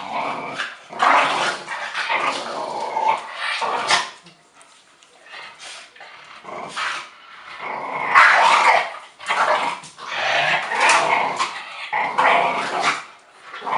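Dogs growling, with some barks, in rough bouts that break off for a couple of seconds after about four seconds and pick up again.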